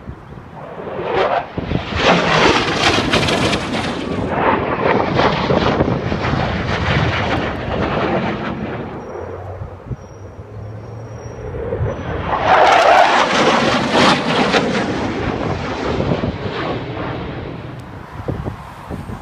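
F-16 fighter jets flying past overhead in two passes. A jet roar swells up within the first couple of seconds and dies away. A few seconds later a second, louder pass rises and fades toward the end.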